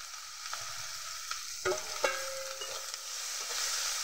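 Freshly added chopped onions sizzling in hot oil in an iron kadai, stirred with a metal spatula. Its steady hiss carries a couple of sharp metal clinks against the pan about two seconds in, one followed by a brief ring.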